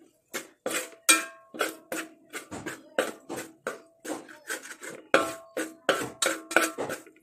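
Metal spoon knocking and scraping against a metal pot while stirring a thick spice paste: a quick run of sharp clinks with a short metallic ring, about three or four a second.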